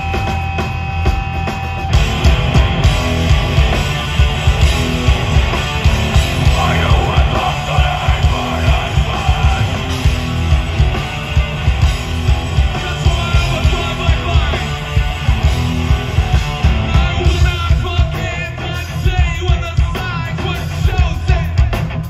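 A hard rock band playing live and loud through a festival PA: pounding drum kit with distorted electric guitars and bass. A steady high tone holds for the first two seconds, and a singer's vocals come over the top later on.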